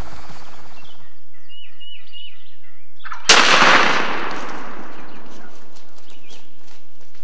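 A wild turkey calls four times in a quick series, then a single shotgun blast about three seconds in, the loudest thing here, its report dying away over the next few seconds.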